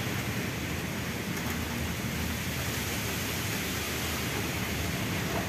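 Steady rain falling, a constant even hiss.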